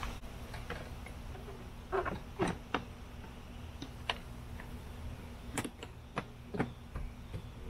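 A scatter of light clicks and taps as hands work at the plastic trim panels and fittings under a car's dashboard, with a few clustered together between two and three seconds in and again around six to seven seconds.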